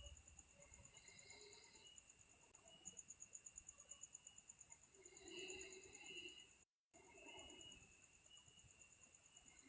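Near silence with a faint, steady, high-pitched pulsing trill like night insects. A soft swell of lower sound comes about five seconds in, and there is a brief dropout to total silence near seven seconds.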